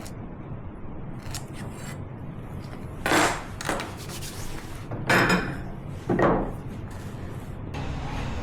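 Three short, loud scraping strokes of a tool against wood, about two seconds and then one second apart, over a low steady hum.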